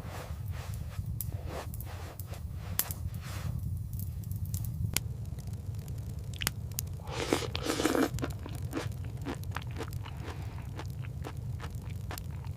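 Irregular crunching, scraping and crackling, with a longer, louder scrape about seven seconds in, over a steady low rumble.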